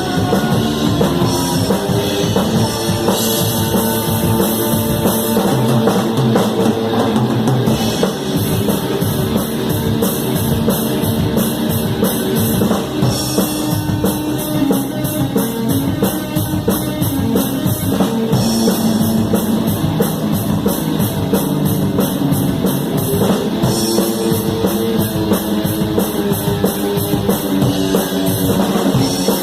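Live rock band playing, with a drum kit close and loud: kick drum, snare and cymbal hits over electric guitar and bass.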